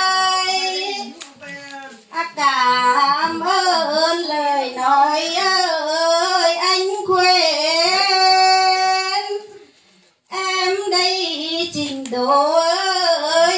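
A high solo voice singing lượn, the Tày–Nùng folk song style, in a slow, ornamented line of long notes that waver and bend in pitch. It breaks off briefly near two seconds in and again for a breath about ten seconds in.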